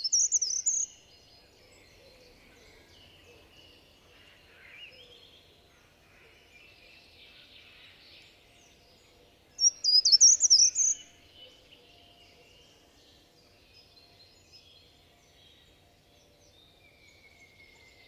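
Small songbird singing twice, each song a quick run of high chirping notes lasting about a second, some ten seconds apart, with fainter bird calls between them.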